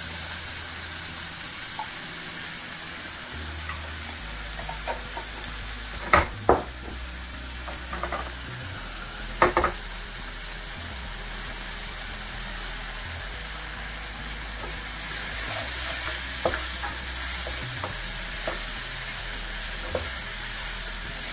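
Chopped onions, garlic, ginger and chili sizzling as they sauté in a saucepan, with a few sharp knocks about six and nine and a half seconds in. The sizzle grows a little louder in the last few seconds as the mixture is stirred with a wooden spatula.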